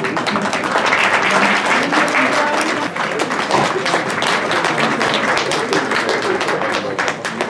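Audience applause that starts abruptly and carries on as a dense, loud clatter of many people clapping, with voices beneath it.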